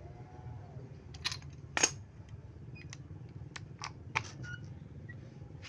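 Scattered sharp clicks and taps of a spark plug wrench and rubber plug cap being worked onto a Honda Supra's spark plug, the loudest click a little under two seconds in, over a faint steady low hum.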